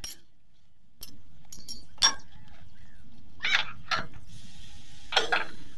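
A steel spanner clinking and clicking against metal while working a bolt on an excavator's battery cable connection, in a handful of sharp, irregular knocks.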